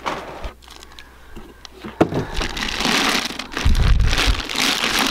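Plastic wrap crinkling and rustling as it is pulled off a new diesel cylinder liner. It starts with a sharp click about two seconds in, and there is a brief low rumble about four seconds in.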